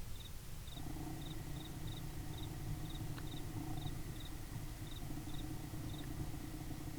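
An insect, likely a cricket, chirping in short high double pulses about two to three times a second, while a steady low hum comes in about a second in and carries on.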